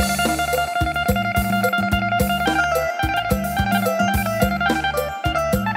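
Yamaha PSR-S770 arranger keyboard being played: a melody over a steady beat and sustained bass notes.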